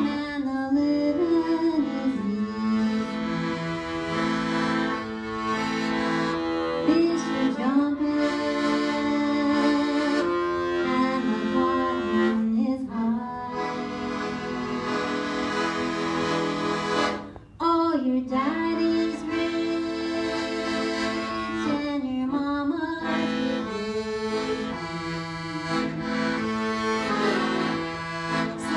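Piano accordion playing a slow, jazzy melody over held chords, with a brief break about seventeen seconds in.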